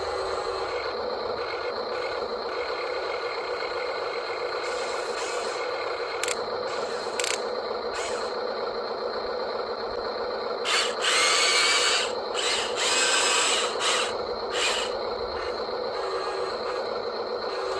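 Small electric motors and gearing of a radio-controlled construction model running steadily with a high whine, with a few sharp clicks and two louder, harsher bursts of gear noise between about 11 and 14 seconds in.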